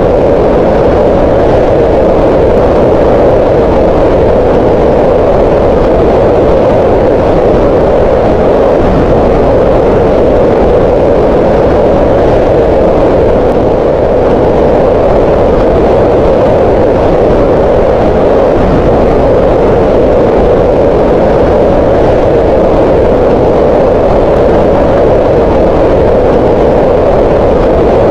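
Green noise: a steady, unchanging rushing hiss with most of its weight in the middle range, neither deep nor bright.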